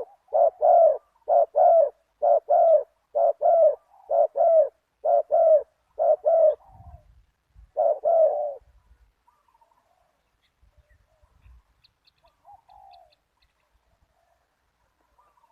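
Spotted dove cooing: a fast run of short, low, paired coo notes about once a second for some six seconds, one more near eight seconds in, then only faint small chirps.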